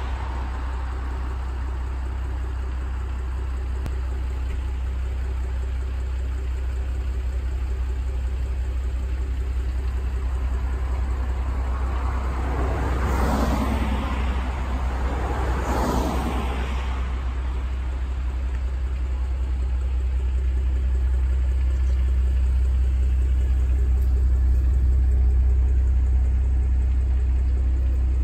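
Steady low rumble, with two vehicles passing by, swelling and fading about 13 and 16 seconds in.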